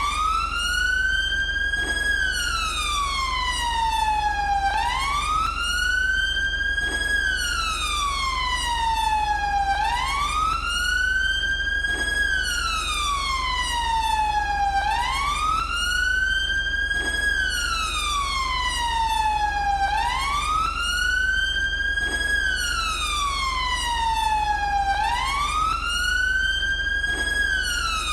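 British police siren on its wail setting: one tone that climbs slowly and then sinks slowly, repeating about every five seconds, over a steady low rumble.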